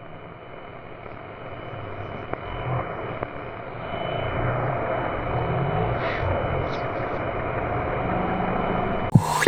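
A rumbling, droning intro sound with a thin high tone fades in and swells steadily. A sudden loud crash near the end brings in the band's music and drums.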